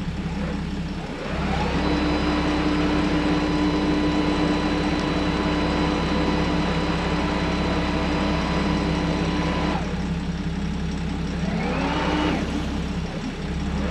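Boat bow and stern thrusters whining as they spin up for a pivot, running steady for about eight seconds and cutting off, then a short second burst near the end. Under them the boat's single engine hums steadily at idle.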